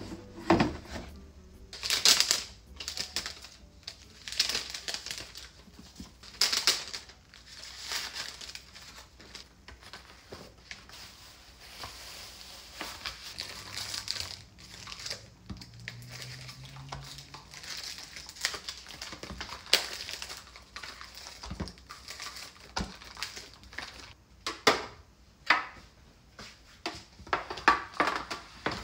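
Plastic grocery packaging crinkling and rustling as packs are handled and opened, with a few light knocks of cartons and plastic containers set down.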